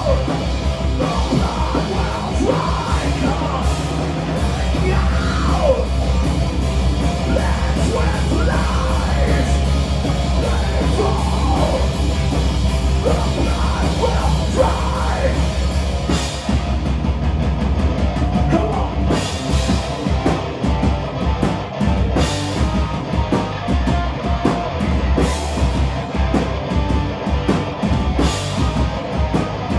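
Live heavy metal band playing loud: distorted guitars over a drum kit, with yelled vocals. From about halfway, big crashing hits land every three seconds or so.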